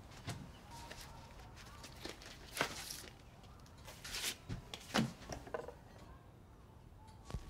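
Quiet footsteps and rustling movement with a few soft knocks, then small clicks of a record player being handled as the tonearm is lifted and lowered onto a vinyl record; a sharp click near the end as the needle sets down.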